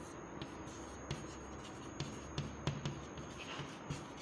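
Chalk writing on a chalkboard: faint strokes with irregular sharp taps as the chalk strikes the board.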